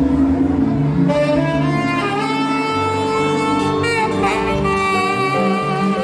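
Tenor saxophone playing a slow melody of long held notes with vibrato, entering about a second in, over a live Latin jazz band's bass and percussion.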